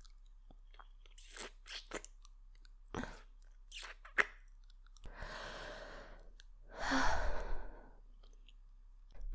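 Close-miked kisses: a series of short, wet lip-smacking clicks, then two long breathy exhales near the mic.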